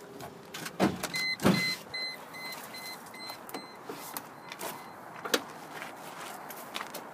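Two thumps about a second in as a door or hatch of a 1998 Mercedes-Benz ML320 is shut. They are overlapped by the car's electronic warning chime, short high beeps about three a second, lasting some two seconds. A sharp click follows a little past the middle.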